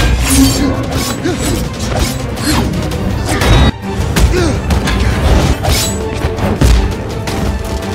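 Action-scene soundtrack: music mixed with a rapid run of crashes and hits.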